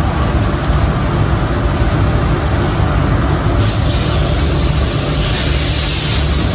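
Automatic picture-frame moulding cutting machine running: a steady low rumble with mechanical noise, and a loud high hiss that sets in about halfway through.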